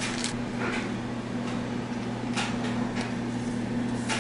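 A trading card being handled and slid into a soft plastic card sleeve: a few short, scattered rustles and light scrapes, over a steady low hum.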